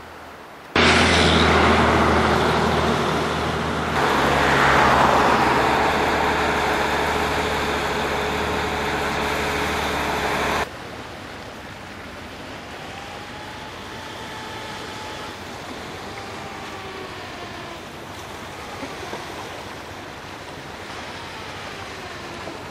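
Motor vehicle on the move: a steady low engine hum under loud road and wind rush, starting suddenly just under a second in and cutting off suddenly about ten seconds later. Quieter outdoor background with a few faint gliding tones follows.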